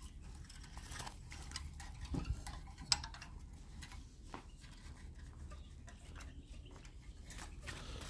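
Faint scattered clicks, taps and rustles from a wooden-and-wire songbird trap being handled as a hand reaches in and takes out a goldfinch, with one sharper click about three seconds in.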